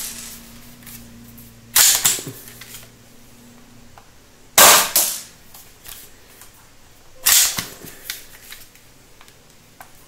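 Toy AWM sniper rifle firing plastic BB pellets at a thermocol sheet: three sharp cracks, evenly spaced a little under three seconds apart, each dying away quickly.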